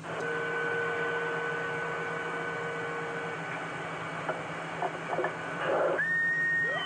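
CB radio on channel 6 receiving long-distance skip: a steady hiss of static with two steady whistle tones of carriers on the channel, the lower one dropping out about halfway. About six seconds in a stronger carrier comes in with a higher whistle, and gliding whistles start right at the end.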